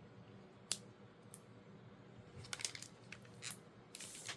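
Pokémon TCG booster pack being handled and opened: scattered sharp crinkles of the foil wrapper, with a longer rustle near the end.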